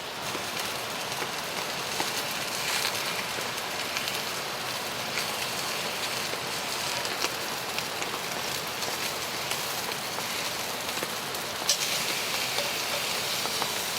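Ribeye steaks sizzling in a brand-new cast iron pan: a steady hiss with occasional crackles.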